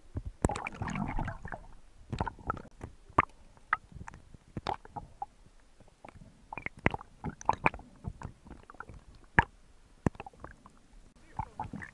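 Seawater sloshing and gurgling around an action camera at the surface, with a rush of splashing about half a second in and many irregular sharp knocks and clicks on the camera housing.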